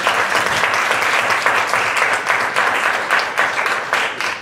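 Congregation applauding at the close of a sermon, a dense, loud, steady clapping.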